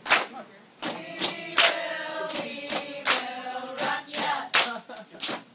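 A mixed group of voices singing together, with sharp percussive hits falling every half second or so.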